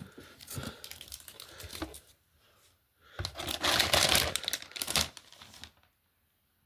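Plastic packaging crinkling and rustling as it is handled and unwrapped, in two spells: a lighter crackle in the first two seconds, then a louder stretch from about three to nearly six seconds in.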